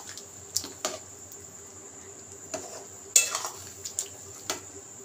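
Metal spatula knocking and scraping against a kadai while stirring a watery potato curry, in a few irregular clicks and knocks, the loudest a little past three seconds in.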